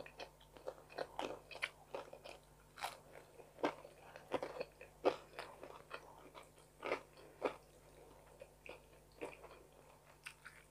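Chewing and crunching of a crisp pita-bread pizza topped with tuna and sweet corn: a run of short, irregular crunches that thin out near the end.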